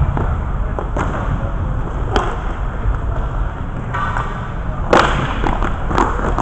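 Inline hockey play: several sharp clacks of sticks and puck, the loudest about five seconds in, over a steady low rumble.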